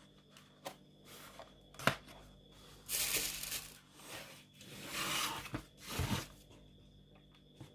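A cardboard subscription box and its packaging being handled: a few light knocks and two short bursts of paper-and-card rustling.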